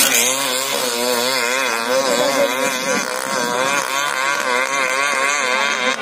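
Motorcycle engines running steadily, their pitch wavering up and down in an even, repeated wobble.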